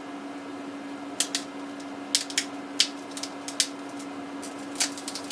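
Sharp, irregular clicks and snaps as the Galaxy S8's glass back panel is pried and pulled away from the frame, the adhesive letting go, over a steady low hum.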